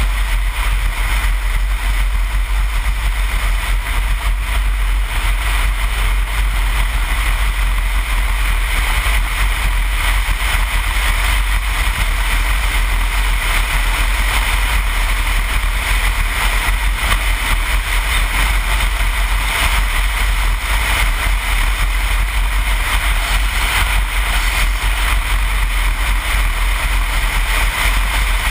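BMW 1200 GS motorcycle cruising at road speed, heard from a helmet camera: steady wind rush over the microphone with the engine and road noise underneath.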